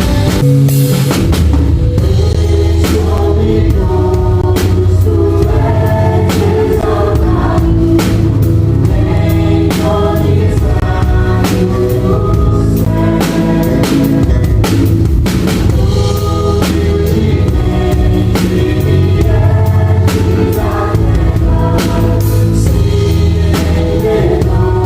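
Drum kit played along to a song with singing; regular drum and cymbal hits run under a sung melody.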